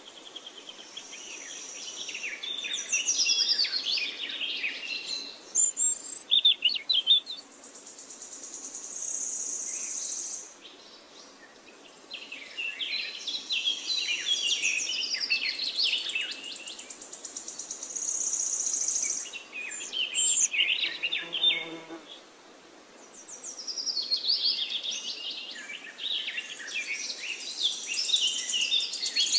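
Birds chirping in repeated bouts of quick, high twittering, with a steady, high insect-like buzz between the bouts.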